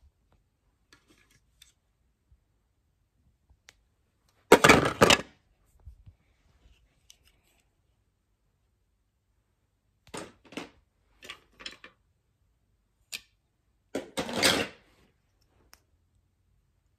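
Plastic toy bricks clattering while being handled and put away: a loud rattle about four and a half seconds in, a run of light clicks a few seconds later, and a second rattle near the end.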